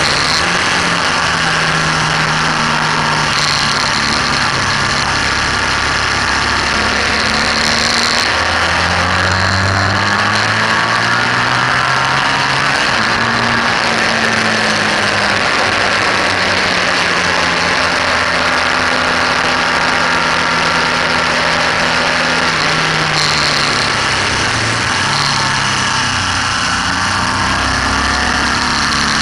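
BMW R1200S's air/oil-cooled boxer twin running hard at track pace, heard from a camera mounted on the bike, its note rising and falling several times with the throttle. A heavy, steady rush of wind runs underneath.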